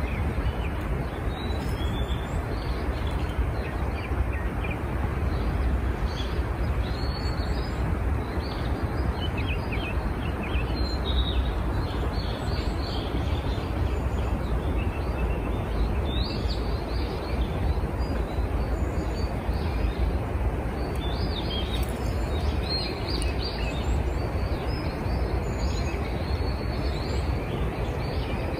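Songbirds chirping and calling, many short notes scattered throughout, over a steady rushing outdoor background with a strong low rumble.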